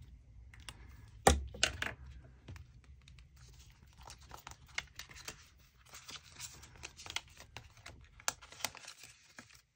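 A sharp click about a second in, then paper and plastic rustling and crinkling as a paper sheet is handled and slipped into a clear plastic binder envelope.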